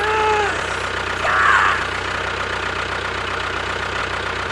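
A motor running steadily with a fast even ticking, like an engine at idle. Brief vocal sounds come near the start and again about a second and a half in.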